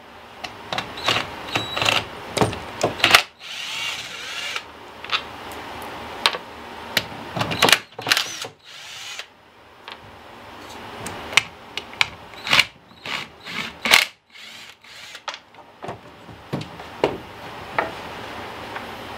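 Cordless drill-driver running in short bursts to back out the screws of a chainsaw's recoil starter cover, among clicks and knocks of tools and plastic and metal parts being handled.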